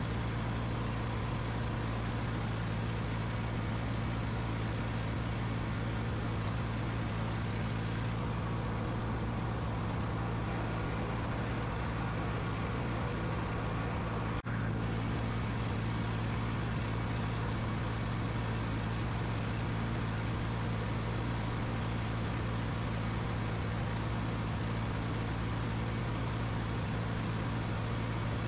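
Ford 1710 tractor's three-cylinder diesel engine running steadily as it drives along mowing grass, with a momentary break about halfway through.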